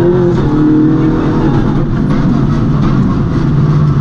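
A MINI rally car's engine at full effort, heard from inside the cockpit, its pitch rising and falling as the car accelerates and slows on a special stage.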